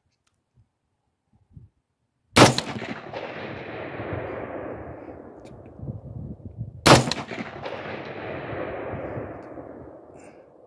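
Two rifle shots from a Radical Firearms AR-15 firing Tula steel-case .223, about four and a half seconds apart, each followed by a long echo that fades over a few seconds.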